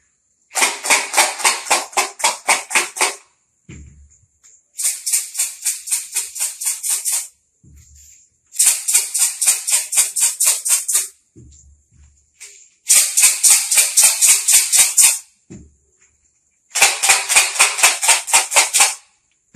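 Lidded bottles filled with dry materials such as rice, pebbles, chickpeas and sand, shaken one after another: five bouts of rattling, each about two seconds of quick shakes at roughly five a second. A short low knock comes just before each bout as a bottle is picked up or set down.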